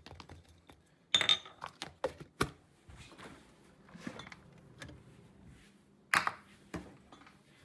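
Kitchen things being handled, such as an ice cream scooper and tub being fetched: a few sharp knocks and clatters, the loudest about a second in and about six seconds in, with quieter rustling and clinks between.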